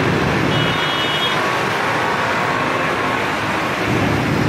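Road traffic at a busy city roundabout: a steady din of vehicle engines, with a brief high-pitched tone about half a second in.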